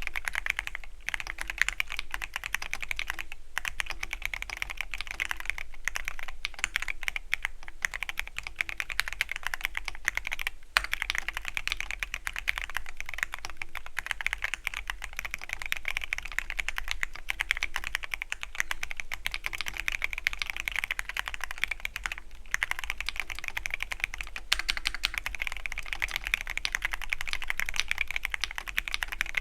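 Continuous fast typing on a Keychron Q13 Pro Max mechanical keyboard with red (linear) switches: a dense stream of key clacks, with a few brief pauses.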